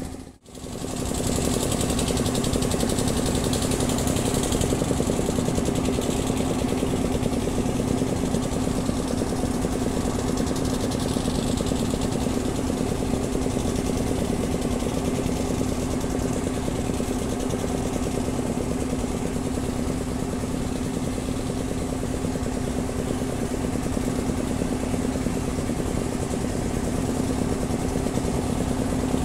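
An unseen engine running steadily at a constant speed, a steady hum with no change in pitch.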